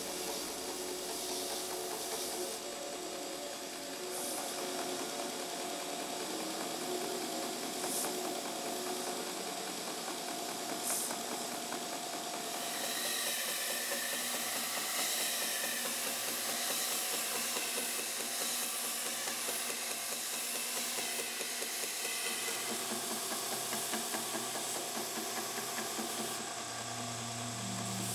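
A belt grinder running while an ash knife handle is sanded against the moving abrasive belt: a steady machine tone under the hiss of wood rubbing on the belt.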